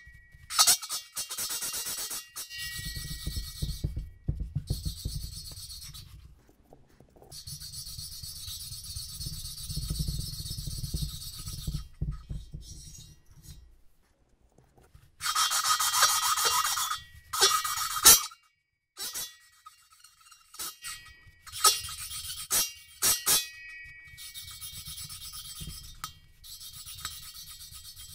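Valve being lapped into its seat in a Yamaha Virago XV750 cylinder head with a suction-cup lapping stick and grinding compound: a gritty rasping scrape as the stick is twirled back and forth, in spells with short pauses. The sound is listened to for the point where it turns smooth, the sign that the valve has been ground in enough.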